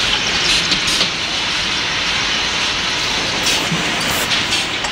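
Automatic coupler tapping machine running: a steady mechanical din with irregular sharp metallic clicks and knocks.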